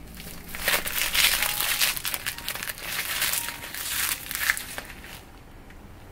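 Crinkling and crackling as a frosted silicone storage bag of frozen sous-vide chicken is handled and flexed in the hands. It starts about half a second in and stops about five seconds in.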